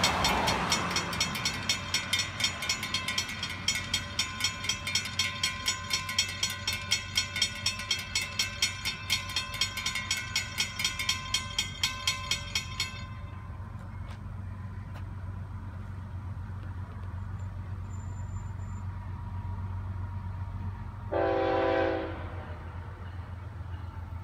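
Railroad crossing bell ringing in a rapid, even rhythm while the gates lower, then stopping about halfway through. About 21 seconds in, the approaching FEC freight locomotive sounds one short horn blast in the distance, over a low rumble of road traffic.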